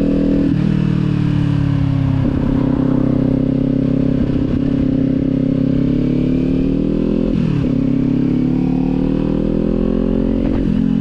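Kawasaki motorcycle engine under way, its pitch climbing steadily as it pulls and dropping sharply at each gear change, about four times.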